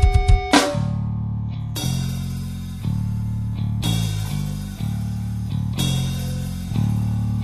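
Rock band recording of guitar, bass and drums. A run of drum hits ends about half a second in, leaving low held guitar and bass chords that change every second or so, with a bright high wash coming in and dropping out twice.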